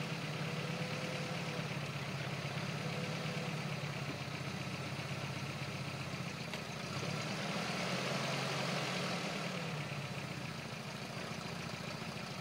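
Engine of a lifted Toyota pickup running at low revs while the truck crawls slowly over steep, rooty ground. It swells a little past halfway, then eases off again near the end.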